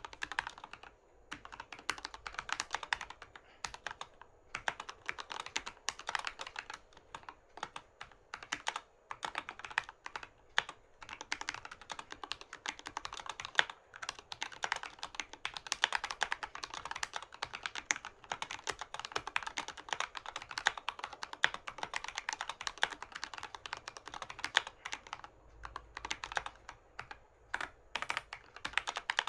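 Continuous typing on a Keychron K6 mechanical keyboard with Gateron Red linear switches and Domikey SA-profile keycaps: a fast, uneven run of key clacks with a few brief pauses.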